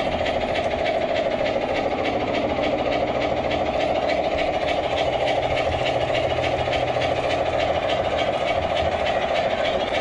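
G-scale model steam locomotive running along its track, heard from on board: a steady hum of the motor, gears and wheels with a fast, even ticking over the rails.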